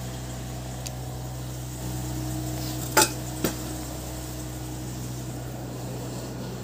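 Two sharp clinks of metal utensils about three seconds in, half a second apart, over a steady low hum.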